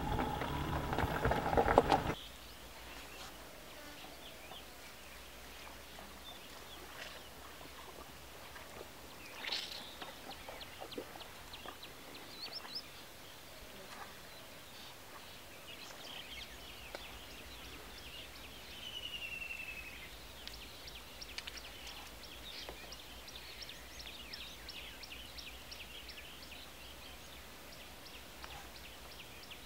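Wild birds calling over a quiet outdoor background: many short high chirps and whistles, with one clear falling whistle about two-thirds of the way through. A louder steady droning sound cuts off abruptly about two seconds in.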